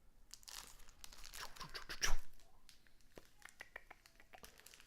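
Plastic packaging being crinkled and torn open by hand, with the loudest crackle about two seconds in, followed by light clicks and taps of hard plastic being handled.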